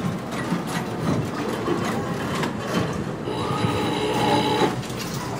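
Casino floor ambience: a dense bed of crowd murmur, clicks and clatter, with a run of electronic slot-machine tones for about a second and a half partway through.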